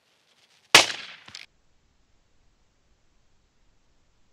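A single shotgun shot about a second in, with a short fading tail and a fainter crack about half a second after it.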